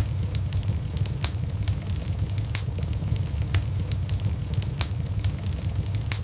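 Wood fire burning in a fireplace: irregular sharp crackles and pops, several a second, over a steady low rumble of the flames.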